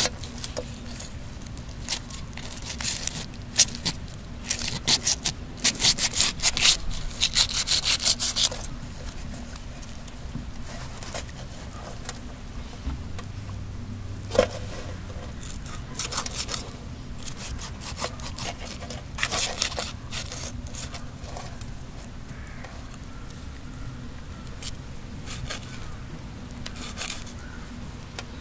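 Quick, repeated scraping strokes in runs, dense for about the first eight seconds and sparser after that: a knife scraping the scales and slime off a murrel (snakehead) fish as it is cleaned.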